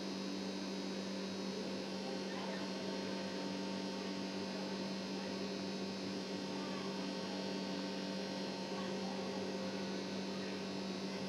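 Steady electrical hum, a low buzzing tone with several overtones, unchanging throughout.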